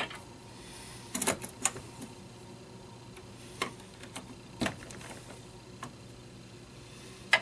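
Sharp clicks from an RCBS priming tool and the brass cases handled in it as primers are seated in military .38 cases: a quick cluster of clicks about a second in, then single clicks spaced a second or so apart, the loudest at the end.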